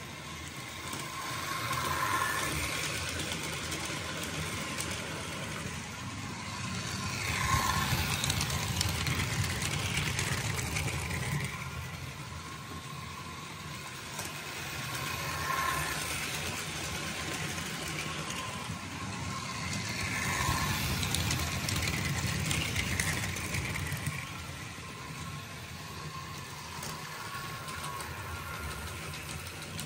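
Model trains running on the layout's track: a steady rumble of motors and wheels that swells and fades several times as trains pass near.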